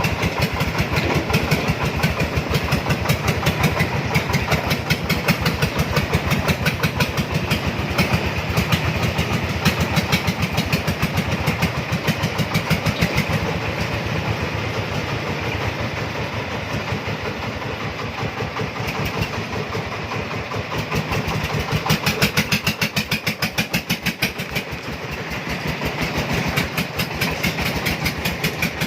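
A loaded cargo three-wheeler's engine running under load with a fast, even beat, easing slightly about two-thirds of the way through and picking up again soon after.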